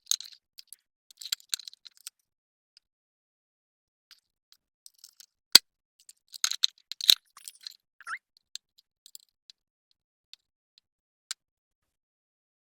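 Scattered small clicks and taps of parts and hand tools being handled during reassembly, with two sharper clicks about five and a half and seven seconds in.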